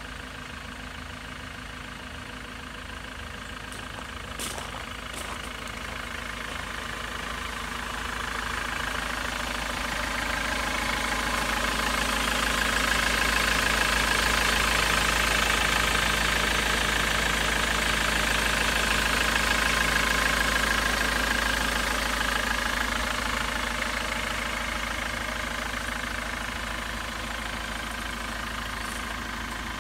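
Ford Transit Mk7 minibus's common-rail diesel engine idling steadily under the open bonnet. It grows louder toward the middle as the microphone nears the engine bay, then eases off again.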